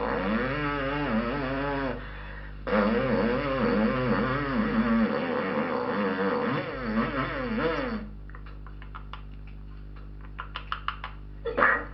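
A man imitating a chainsaw with his voice: a buzzing tone that rises and falls again and again, with one short break. It gives way to a run of sharp clicks standing for wood cracking and splintering. Guitar music starts at the very end.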